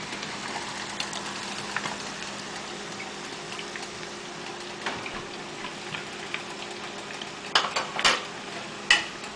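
Chicken pieces deep-frying in a small pot of hot oil: a steady bubbling crackle dotted with small ticks. A few sharp clatters of cookware near the end.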